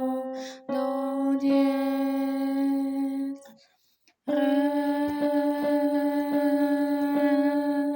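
A woman sings long, steady pitch-matching notes on a note name, with a break between two tones. The second note is slightly higher, moving from about C-sharp to D above middle C. Faint clicks sound during the notes.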